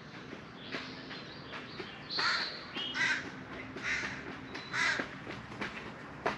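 A crow cawing: a series of about five harsh caws, each a little under a second apart.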